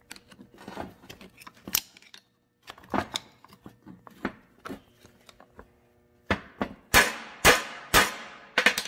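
Hammer blows on a driveshaft's steel yoke, driving a worn U-joint's bearing cap out. A few lighter metallic taps come first, then about five hard, ringing strikes in quick succession near the end.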